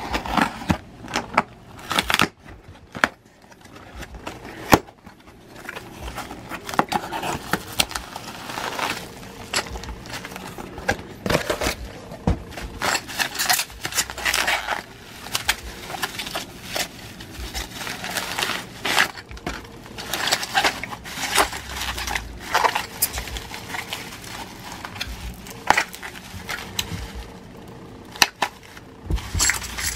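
Unboxing handling noise: packing tape on a cardboard box being cut and the flaps pulled open, then bubble wrap crinkling and crackling as it is unrolled and cut open. Irregular crackles and clicks throughout.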